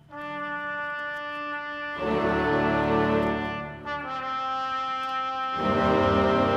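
Background music of held chords that change about every two seconds.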